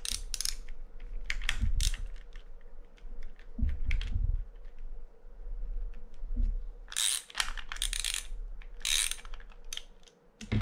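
Socket ratchet wrench clicking in several short runs of rapid clicks as its handle is swung back between turns, loosening the clicker nut on a fishing reel's brass side plate. A few dull knocks fall between the runs.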